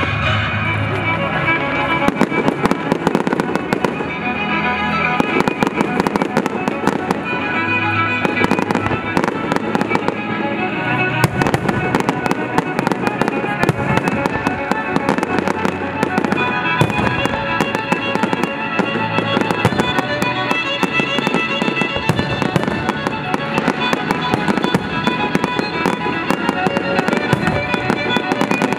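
Aerial firework shells bursting in rapid succession, a dense run of sharp bangs and crackles, over loud music played for the display.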